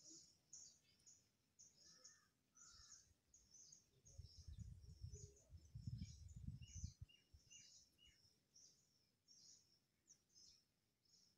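Faint outdoor ambience: small birds chirping, a quick string of short high chirps, with a few lower notes. A low rumble comes in around the middle and lasts a few seconds.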